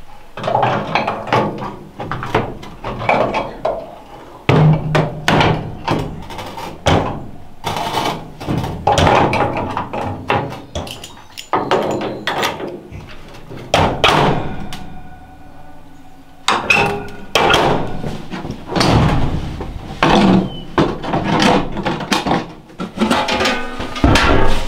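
Irregular metallic clanks and knocks as the parts of an old Elmira cast-iron wood cookstove, its oven door and fittings, are handled and fitted back together. A knock about halfway through leaves a short metallic ring.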